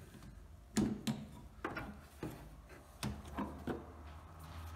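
A string of sharp clicks and light knocks from an Opel Vectra A's windscreen wiper arm and its plastic trim being handled and lifted off the glass, the loudest about a second in.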